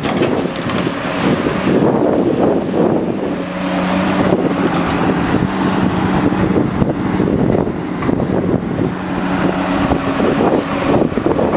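Highway traffic noise: a continuous rush of cars and trucks passing. A low, steady engine hum from a heavy vehicle holds from about three seconds in to about nine seconds in.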